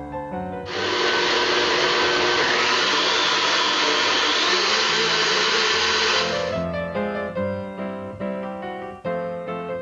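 Blendtec Total Blender motor running for about six seconds, its pitch rising partway through, then stopping; piano music plays before and after it.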